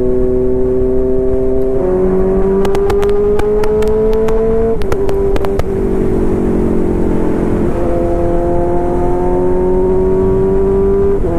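Yamaha FZ25's single-cylinder engine heard from on board under acceleration: its pitch climbs, drops at a gear change about five seconds in, then climbs again and drops at another shift near the end. A short run of sharp clicks comes a few seconds in.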